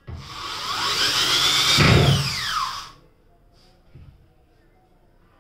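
Corded electric drill run in one burst of about three seconds during wardrobe assembly. The motor whine rises, peaks around two seconds, then winds down and stops.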